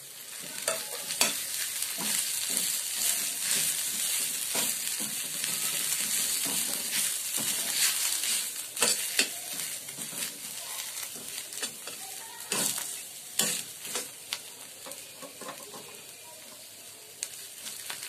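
A metal spoon stirring and scraping a mashed-potato mixture in a hot kadhai, with a steady sizzle of frying and frequent clicks and scrapes of the spoon against the pan. The stirring eases off in the last few seconds.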